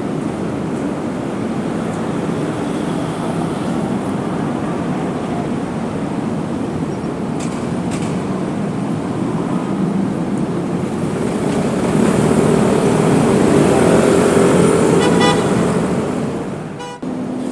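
Steady city street traffic noise from passing cars and buses, swelling as a vehicle passes close, then dropping off suddenly near the end.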